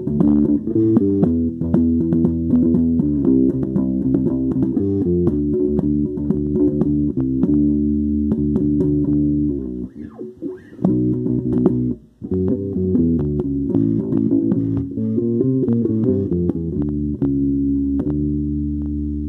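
Electric bass guitar played solo, a continuous line of plucked notes, broken by two brief gaps about ten and twelve seconds in.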